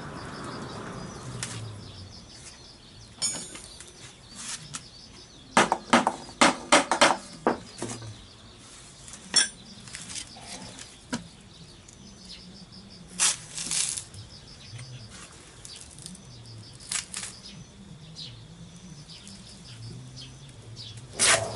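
Metal tools and scooter engine parts clinking and knocking as the engine is worked on by hand: a quick run of sharp metallic clinks about six seconds in, with scattered single knocks before and after.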